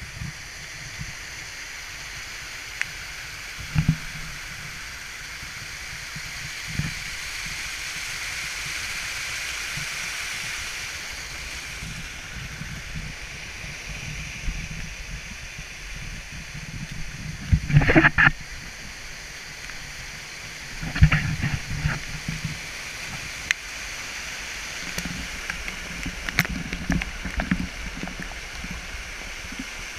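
Small creek waterfall and its cascades rushing steadily over rock ledges, flowing strongly. A few short knocks and bumps sound over the water, the loudest cluster a little past halfway and another soon after.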